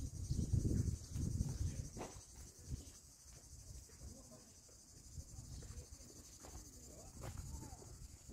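Insects chirring steadily in a high, even band, with a low rumble in the first second or so and faint distant voices later.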